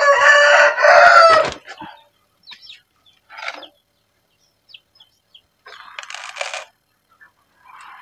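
A rooster crows loudly once, for about a second and a half. Afterwards come a few short rustling scrapes as the basin of dry feed is handled and tipped.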